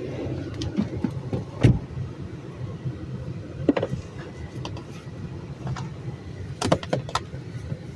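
Honda Civic Si coupe driving, its engine a steady low hum, with several sharp clicks and knocks, a loud one about two seconds in and a quick cluster near the end.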